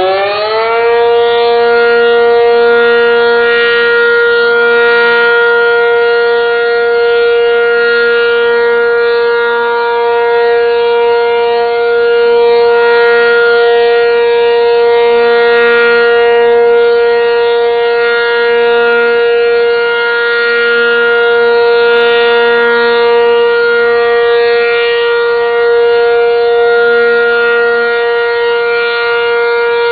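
Cyclone warning siren finishing its rise in pitch about a second in, then sounding one long steady tone.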